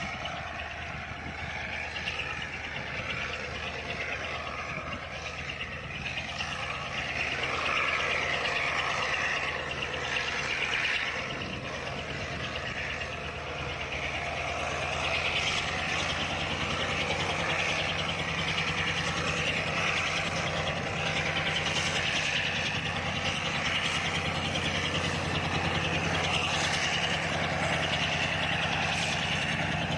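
G22UC diesel-electric freight locomotive's engine running steadily as it pulls its train, growing louder as it draws near, with the rumble and rattle of the freight cars on the rails.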